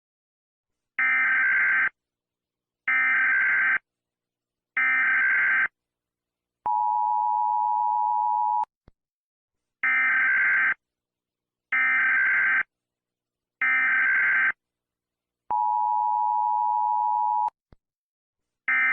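US Emergency Alert System tones: three one-second screechy SAME data bursts, then a two-second steady two-tone attention signal. The sequence repeats, and another data burst begins near the end.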